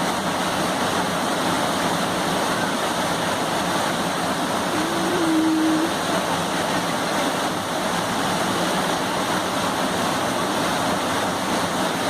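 Steady rushing of fast-flowing floodwater, an even roar with no breaks, with a brief short hum or voice about five seconds in.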